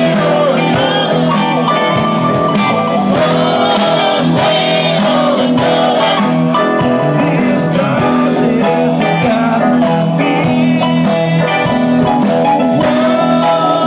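A live band playing a song: electric guitars and bass under a singing voice, loud and steady.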